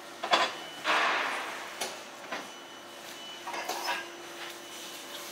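Foam sheet being handled at a foam-roll winding machine: a few sharp knocks and clacks of the machine's metal parts, and a swishing rustle of foam about a second in, over a faint steady machine hum.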